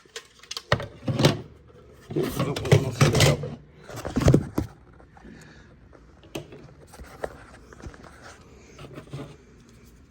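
Plastic knocks, clacks and scraping as smoke alarm housings are handled, loudest and busiest in the first few seconds, then only faint scattered clicks.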